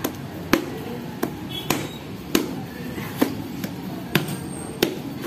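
A heavy kitchen knife hacking into the husk of a young coconut: about nine sharp chopping strikes, roughly one every half second.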